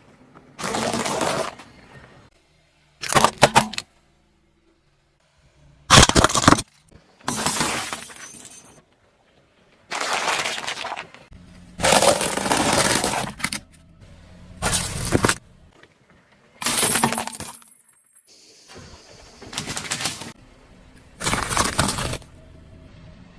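A run of about ten separate crunching and cracking sounds from objects being crushed under a car's tyre, each lasting under two seconds and starting and stopping abruptly.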